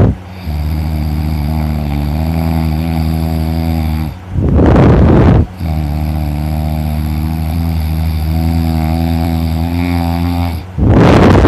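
A person snoring heavily in deep sleep: long, low, buzzing snores broken twice by a short, loud, breathy blast, about six seconds apart.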